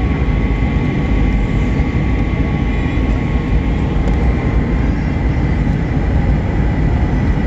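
Airliner cabin noise: a steady deep rumble of engines and rushing air heard from inside the cabin, with a faint steady whine above it.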